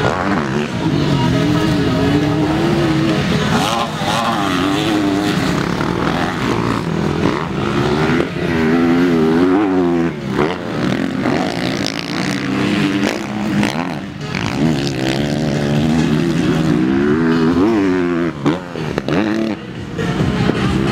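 Motocross dirt bike engines revving up and down, their pitch rising and falling again and again as the bikes work the track.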